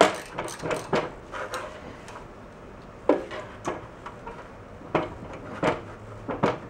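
A wrench with a hex bit clicking and clinking against a steel snowblower pulley hub as set screws are worked out: about a dozen short, irregularly spaced metallic clicks, with the sharpest ones about three and five seconds in.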